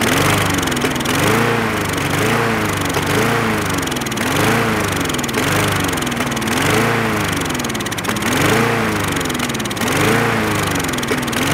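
Craftsman push mower's Briggs & Stratton engine running and surging: its speed rises and falls about once a second. This hunting is typical of a lean or dirty carburetor.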